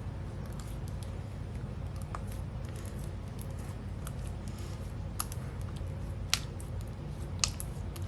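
Hands folding and pressing whipped slime mixed with sprinkles, making scattered small clicks and pops. The three sharpest come about five, six and seven and a half seconds in, over a steady low hum.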